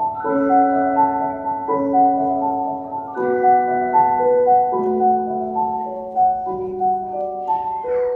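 Slow, gentle instrumental music: a melody of ringing, sustained notes over low notes that change about every second and a half.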